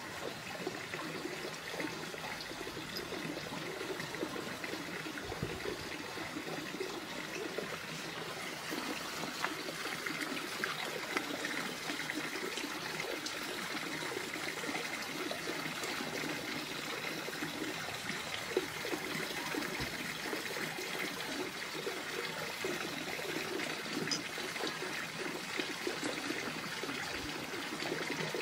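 Steady trickling of running water.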